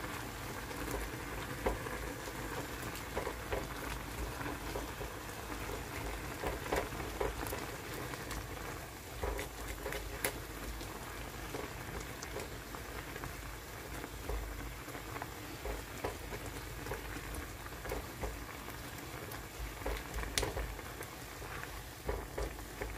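Spicy ramen-and-rice-cake broth bubbling at a steady boil in a pan, with scattered light clicks of a plastic spatula stirring against the pan.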